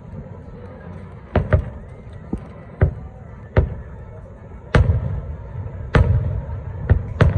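Aerial fireworks shells bursting: about nine sharp booms at irregular intervals, each trailing off in a low rumble.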